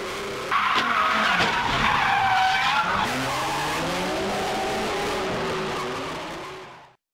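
Drift cars sliding through a corner in a close group: engines revving up and down over the squeal and hiss of tyres skidding. It gets louder about half a second in, drops back a little around three seconds, and fades out just before the end.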